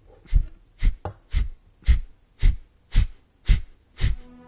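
Heartbeat sound effect: deep thumps with a click on top, steady at a little under two beats a second.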